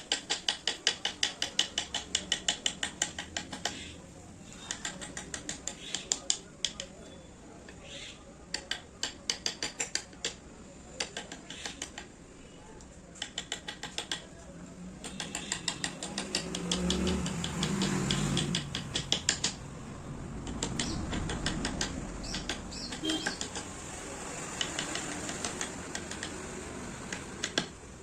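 Runs of rapid light taps, several a second with short pauses between runs: a mallet striking a carving chisel cutting into wood.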